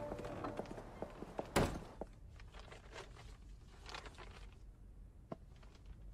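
A single sharp knock about one and a half seconds in, then faint crinkling of wrapping paper and soft handling sounds as a boxed object is lifted out of its paper packing. The tail of background music fades out at the start.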